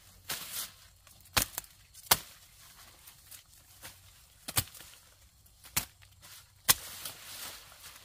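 A blade chopping through vegetation: about five sharp strikes at uneven intervals, with rustling between them.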